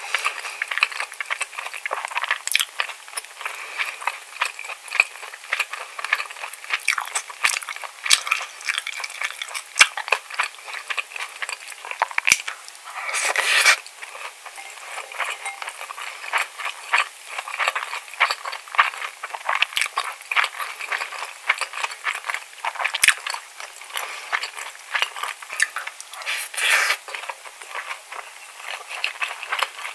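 Close-miked chewing and lip-smacking of mouthfuls of rice bibimbap, mixed with a plastic spoon scraping and clinking against a stoneware bowl. There is a dense run of small wet clicks throughout, and a louder noisy rush lasting about a second near the middle.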